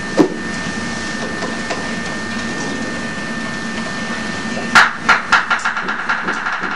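Peking opera percussion accompanying a stage fight: one sharp knock near the start, then about two-thirds of the way in a run of sharp strikes that comes quicker and quicker, over a steady hiss.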